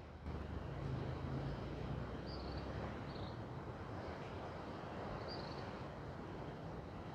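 Steady outdoor background noise, an even rushing hiss, with a few faint high chirps about two, three and five seconds in.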